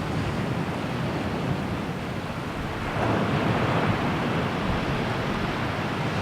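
Waves washing in, with wind buffeting the microphone; the surf grows louder about three seconds in.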